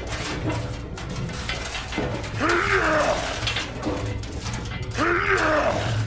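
A gruff voice grunting and groaning with effort twice, about two and five seconds in, over a steady clicking, ratchet-like mechanical rattle.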